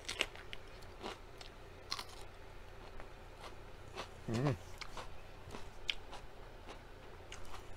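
Close-up biting and chewing of a crisp red sweet pepper: a crunch as it is bitten, then separate crunching chews spread through. A short hum of the voice comes about four seconds in.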